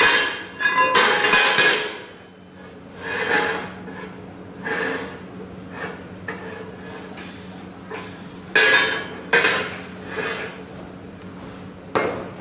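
Flat steel bar being handled against a steel square-tube frame: irregular metal clanks and scrapes with a ringing tail, heaviest in the first two seconds and then coming every second or two, over a steady low hum.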